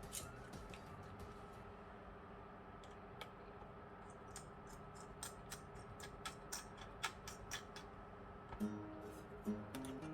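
Quiet background music with scattered sharp clicks and taps from small tools and laptop parts being handled; the clicks come thickest in the second half.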